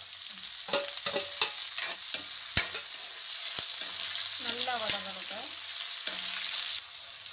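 Sliced onions, green chillies and freshly added tomatoes sizzling in hot oil in a metal kadai while being sautéed, with a metal spoon scraping and clicking against the pan as it stirs. Sharp knocks of the spoon stand out about two and a half and five seconds in.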